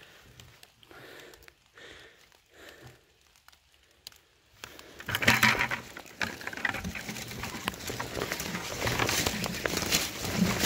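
Footsteps and leaves and brush rustling and crackling as someone walks through forest undergrowth, starting a little under halfway through after a few seconds of faint, quiet rustles.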